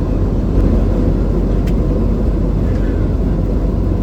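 Cabin noise of an Airbus A320: a steady, loud low rumble of engines and airflow.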